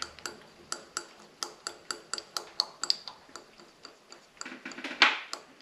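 Rotary table handwheel being cranked round and round on its 90-to-1 worm drive to index the next gear tooth, ticking about four times a second. A louder scrape about five seconds in.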